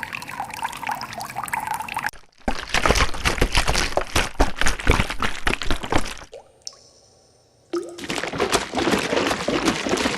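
Water sound effects: several blocks of pouring and splashing water, each cut in and out abruptly, with a short quieter gap just past the middle.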